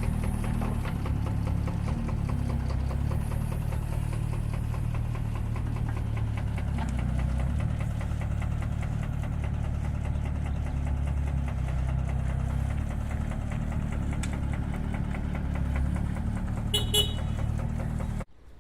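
Diesel engine of a small earthmoving machine running steadily at a constant speed, with a brief high beep about a second before it cuts off suddenly.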